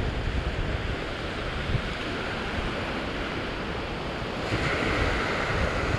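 Ocean surf washing and foaming over rock ledges, a steady rush that swells louder about four and a half seconds in, with wind rumbling on the microphone.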